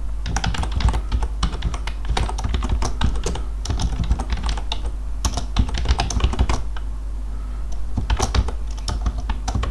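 Typing on a computer keyboard: a run of quick, irregular keystrokes as a line of code is entered, with a couple of short pauses. A steady low hum sits underneath.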